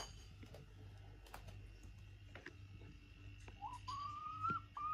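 Silkie hen giving thin, high-pitched drawn-out calls, three in a row from about three and a half seconds in, the middle one longest, each rising slightly in pitch. A light tap sounds among them.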